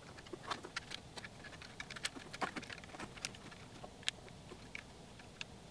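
Faint, irregular light clicks and taps of 3D-printed plastic parts handled by hand as steering rods are lined up and a small screw is worked into place.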